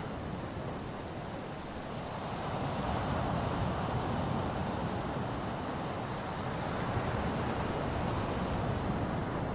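Ocean surf, a steady wash of breaking waves that grows louder about two seconds in and then holds.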